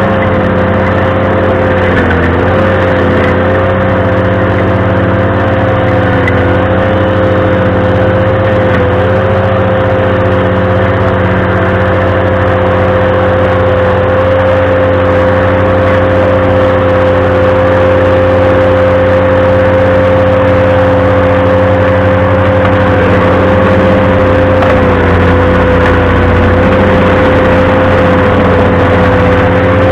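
Ventrac compact tractor running a stump grinder at full throttle: a loud, steady engine-and-drive whine that sags briefly in pitch twice, about two seconds in and near the end.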